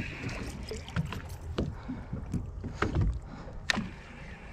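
Boat drifting on open water: a low rumble of water against the hull and wind, with a few light knocks and clicks on board.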